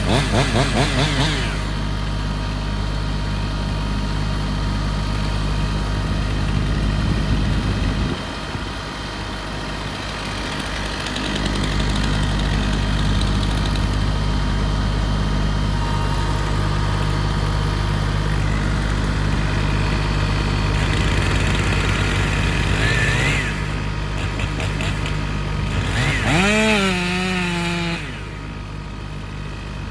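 Chainsaw running, revving up briefly at the start and again near the end, over a steady idling engine.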